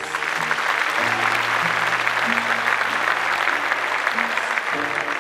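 Studio audience applauding over soft background music with held low notes.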